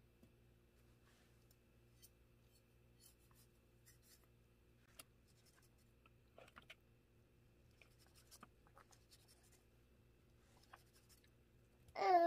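Faint scattered scratches and light clicks of handling over a steady low hum, with a short, loud pitched call near the end.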